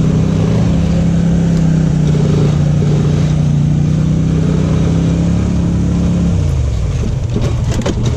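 Off-road vehicle engine running steadily at held revs, its pitch falling off about six seconds in as the revs drop. A few sharp knocks near the end.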